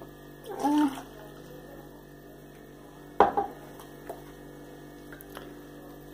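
Hot mulled brandy poured from a small red pot into cups: a faint trickle of liquid. There is a sharp clink about three seconds in, as the pot meets a cup, then a couple of light taps. A short hummed voice sound comes near the start.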